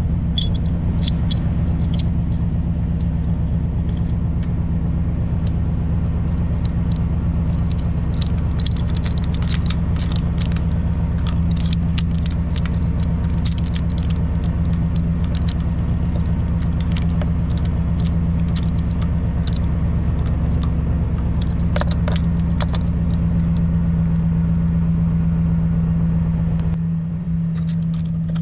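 Vehicle engine idling steadily, with light metallic clinks and jingles as the steel anti-rattle U-bolt clamp, its plate, nut and locking lever are handled and fitted at the hitch receiver.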